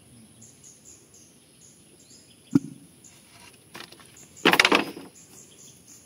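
Bamboo poles being handled: a single hollow knock about two and a half seconds in, then a loud rattling scrape near the end. Birds chirp faintly in the background.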